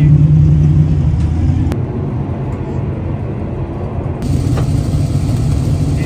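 Steady low engine rumble, loudest in the first couple of seconds, with a single sharp click a little under two seconds in.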